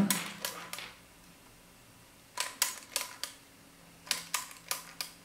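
Panasonic RX-ES25 cassette deck mechanism clicking in quick clusters of about four sharp clicks, twice, as it is worked by hand and its solenoid and programming wheel shift it between tape modes. Under the clicks is a faint steady hum from the running mechanism.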